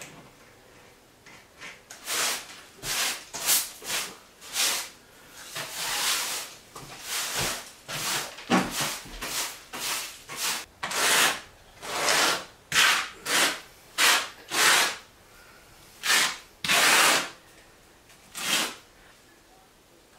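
A hand tool scraping repeatedly over porcelain floor tile and tile mortar: about twenty separate strokes of varying length, beginning about two seconds in and stopping near the end.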